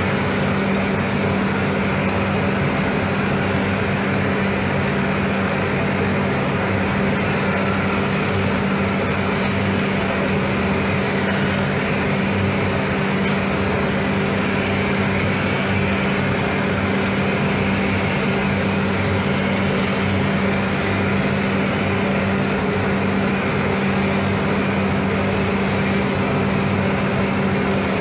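Paint spray booth's ventilation fans running: a steady drone with a constant low hum and an even rush of air.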